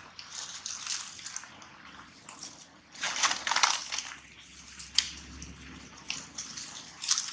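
Dry leaf litter rustling and crackling as monkeys move and shift on the ground, in irregular bursts, loudest about three seconds in, with a sharp click about five seconds in.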